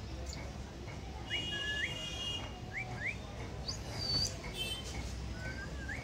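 Cockatiel giving short rising whistles and chirps, mostly in pairs, over a low background hum.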